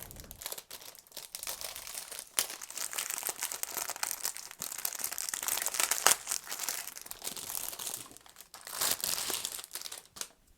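Packaging crinkling and rustling as a new keyboard is unwrapped and taken from its box: a long stretch of dense crackling, a short pause, then a second burst near the end.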